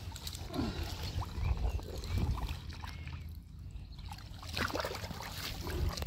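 Lake water sloshing and splashing gently around a carp sling and the angler's hands as a mirror carp is held in the shallows and let go, with a low rumble underneath.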